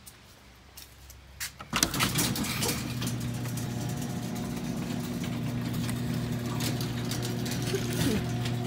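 A steady machine hum, like a motor or engine running, starts about two seconds in and holds one low pitch with overtones. A few knocks come near its start.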